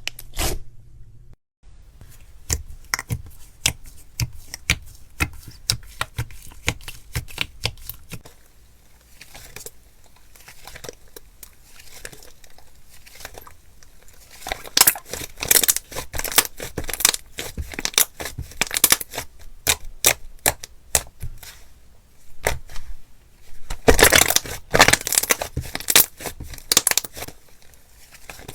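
Slime being squeezed and worked by hand, making quick runs of sticky crackling and popping clicks that come thickest about halfway through and again near the end.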